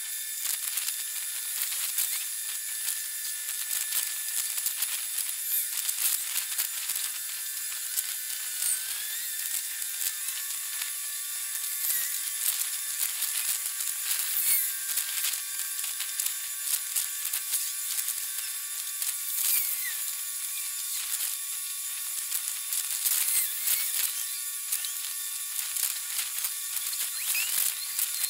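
Harbour-side ambience sped up forty times in a time-lapse: a steady high-pitched hiss crowded with rapid clicks and short chirps, with a few thin held tones and nothing low.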